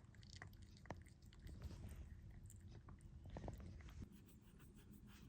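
A cat chewing food, faint with a few soft clicks of its jaws; the cat is eating while recovering from a tooth extraction.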